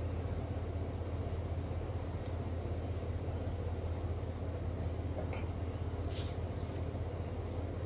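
A steady low hum with background hiss. A few faint, brief rustles come as hands work through and adjust a human-hair wig on the head.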